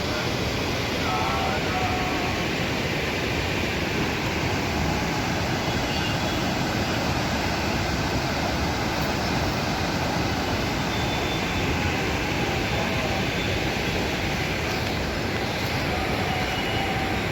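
Steady rushing of swollen Musi River floodwater pouring over and past a bridge, an even, unbroken wash of noise with faint tones over it.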